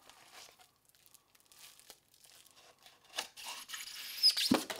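Packaging handling as a small LED aquarium light is worked out of its foam insert inside a clear plastic tube. Faint rustling comes first, then about three seconds in a louder scraping of foam against plastic that lasts about a second and a half, ending in a dull knock.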